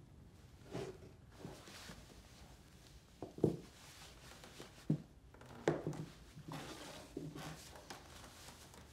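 Shoes being pulled off and dropped on wooden floorboards: a few short knocks among soft rustling of clothing and bedding.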